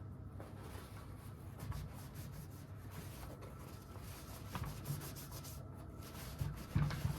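An oiled AR-15 rifle being wiped down by hand: steady rubbing and scraping over its surface, with a few light knocks near the end.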